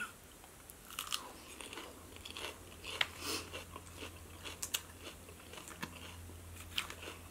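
A person chewing a mouthful of crisp lettuce salad close to the microphone, with irregular crisp crunches, over a faint steady low hum.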